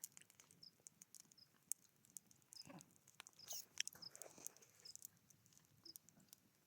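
Faint crackling of a wood campfire: scattered small pops and snaps over near silence, with a short high chirp repeating about once a second.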